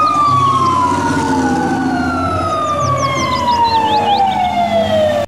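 Fire truck sirens wailing, two siren tones overlapping, the louder one sliding slowly and steadily down in pitch, over a low rumble.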